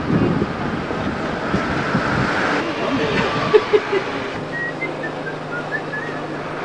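Outdoor background noise with voices in the distance. After a cut about four seconds in, a steady low hum takes over.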